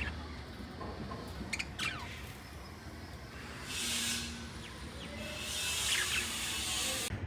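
Pet lovebirds chirping, a few short sharp chirps, with two longer spells of rustling noise about four and six seconds in.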